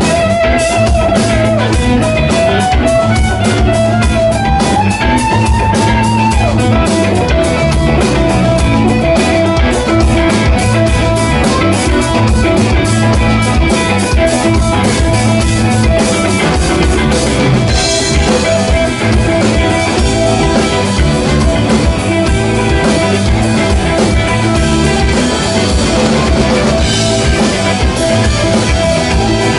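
Live rock band playing an instrumental: electric guitar lead with a rising bent note a few seconds in, over drum kit, bass and keyboard.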